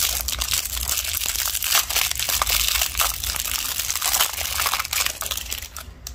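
Clear plastic wrap crinkling as fingers peel it off a plastic contact lens case: dense, continuous crackling that dies away near the end.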